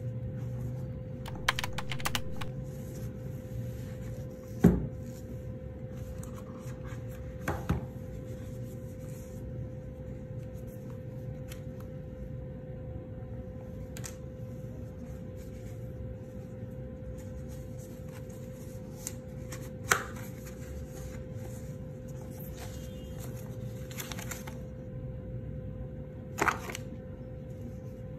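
Cardboard phone packaging and paper leaflets handled by gloved hands: rustling and sliding, with about six sharp taps and knocks, the loudest about five seconds in. A steady hum runs underneath.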